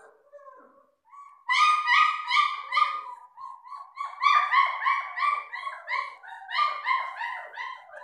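German Shepherd puppy whining: a string of short, high-pitched cries, each falling in pitch, about three a second. They begin about a second and a half in and pause briefly near the middle.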